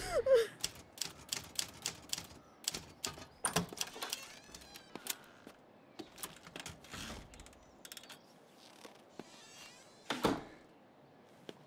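Manual typewriter being typed on: a run of quick, irregular key strikes that thins out over the second half, with one louder thump about ten seconds in.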